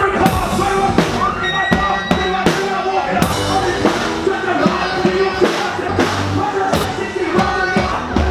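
Rock-style music with a drum kit keeping a steady beat under pitched instruments.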